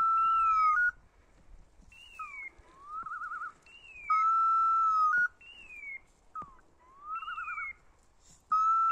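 Electronic beeper collar on an English setter sounding its on-point signal: a held electronic beep, a fast warbling trill and falling whistle-like glides, repeating about every four seconds. The sequence signals that the dog is standing still on point.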